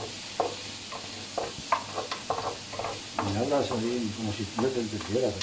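A wooden spoon scrapes and stirs rice in an electric paella pan over a steady sizzle: the rice is frying in the sofrito before the broth goes in. About three seconds in, a person's voice starts over the stirring.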